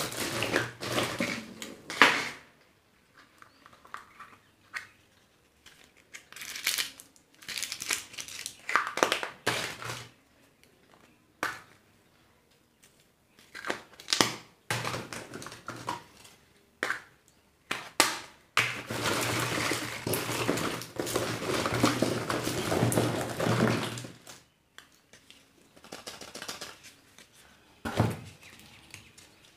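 Plastic wrappers of surprise eggs and candies being crinkled and torn open by hand, in irregular bursts with short pauses. There is a longer stretch of continuous crinkling past the middle and a few sharp plastic clicks.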